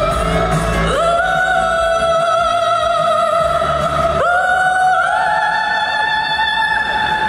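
Background music: a high voice singing long held notes over soft accompaniment, sliding up to a higher pitch a few times.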